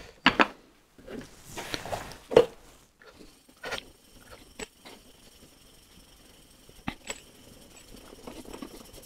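Steel chisel being honed on a sharpening stone to refresh its secondary bevel: short scraping strokes and clicks of metal on stone, busier in the first couple of seconds, then a few sharp clicks.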